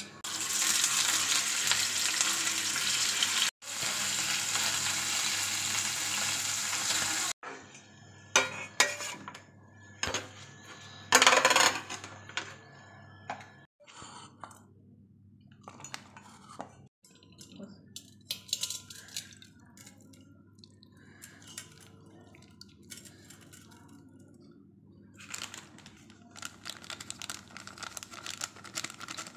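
Kitchen utensils clinking and scraping against pots and pans, with stirring, during cooking. A steady hiss fills the first seven seconds, cut off abruptly twice, and is followed by scattered sharp clinks, one loud clatter, and a dense run of clinking near the end.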